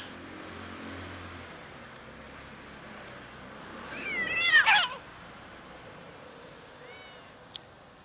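A cat meows: one loud, drawn-out meow about four seconds in whose pitch rises and then falls, then a short, faint meow near the end.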